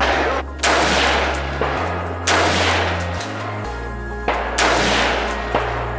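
Gunshots, several at irregular intervals, each with a long ringing tail, over electronic background music with a steady bass.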